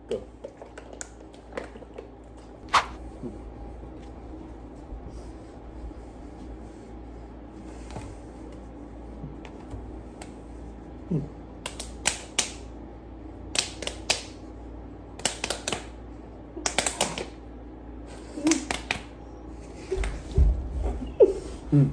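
Quick groups of two to four sharp hand slaps or claps, from hands pumping and smacking together in a rock-paper-scissors round, over a steady low room hum.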